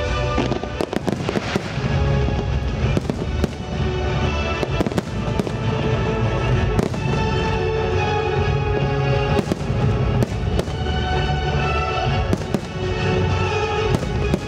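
Aerial fireworks shells bursting in sharp bangs, a quick cluster about a second in and more scattered through, over music with long held notes.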